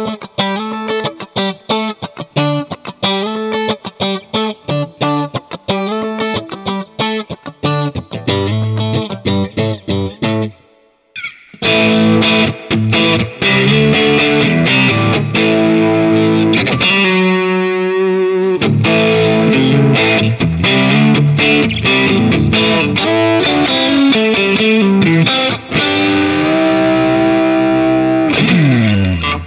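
MUSI Capricorn Fusion electric guitar played through effects and distortion. It opens with about eleven seconds of short, quickly picked notes, then after a brief break comes louder, sustained distorted lead playing. A long held note sits near the middle and a falling slide comes near the end.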